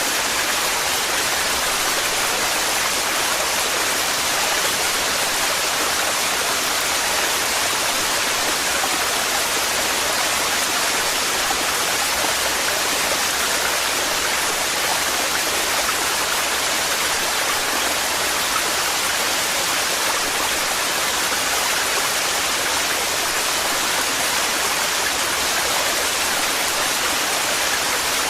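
Waterfall: a steady rush of heavily falling water, its hiss strongest in the upper range and unchanging throughout.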